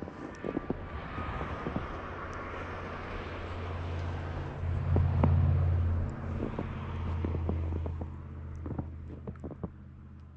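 A motor vehicle's engine drone that swells to its loudest about five seconds in and then fades away, as a vehicle passes, with scattered light crunches in snow.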